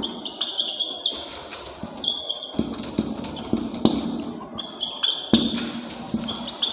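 Marker pen writing on a whiteboard: a run of quick taps and short squeaks of the tip as the words are written.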